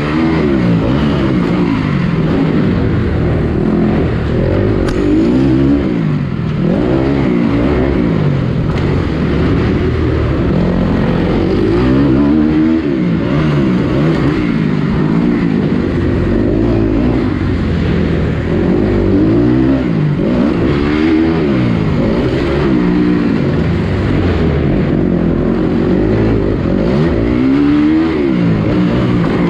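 Motocross bike engine revving hard and backing off over and over, its pitch rising and falling every second or two as the rider works the throttle around the track.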